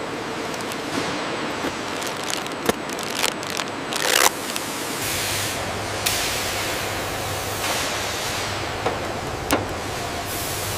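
Steady hissing industrial workshop background noise, with a few sharp metallic clicks and knocks about two to four seconds in; a steady low hum joins about halfway through.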